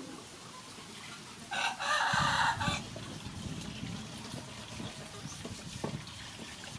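A rooster crowing once, about a second and a half in, lasting a little over a second, over a low background rumble with a few faint knocks.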